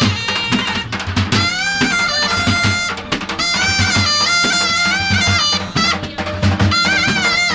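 Music: a wind instrument plays a melody in long held notes over a steady drum beat.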